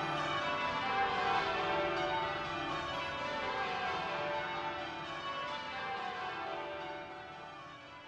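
Church bells ringing changes, several bells struck in turn in descending rounds, fading out near the end.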